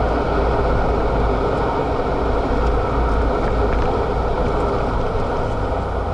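Renault Mégane RS265's 2.0-litre turbocharged four-cylinder engine running steadily at track speed, heard from inside the cabin together with dense road noise.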